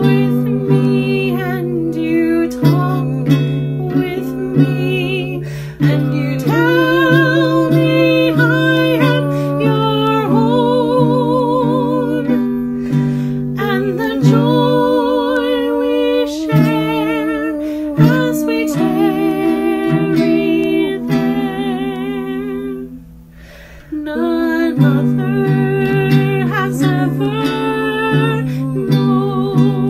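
A woman singing a slow song in two layered vocal parts with her own voice, over a plucked and strummed ukulele; the sung notes waver in a slow vibrato. The music thins out briefly about 23 seconds in, then picks up again.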